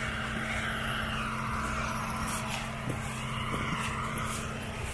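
A steady low machine hum with a higher whine that slowly rises and falls in pitch, and a few brief clicks or scrapes.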